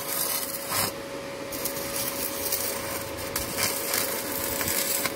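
Stick-welding arc crackling and sizzling steadily on a steel exhaust pipe, with several louder spurts of crackle.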